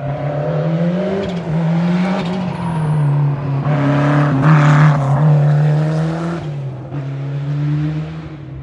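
Historic rally car at full stage pace, the engine rising and falling in pitch with throttle and gear changes as it passes, loudest about halfway through and then fading away.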